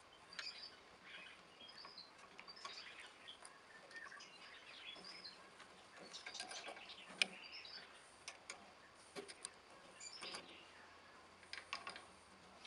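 Faint clinks and taps of steel parts being handled as a bridge clamp is set up over a connecting rod on a lathe faceplate, with one sharper metallic click about seven seconds in. Small birds chirp faintly in the background.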